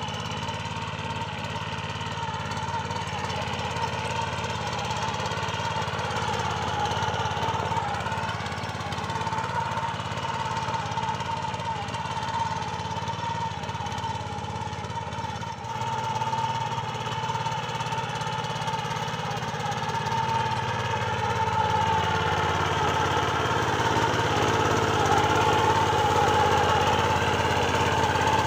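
Power weeder engine running steadily under load as its rotary tines till through tall grass and soil. The pitch wavers slightly as the load changes, and the engine gets louder in the last third.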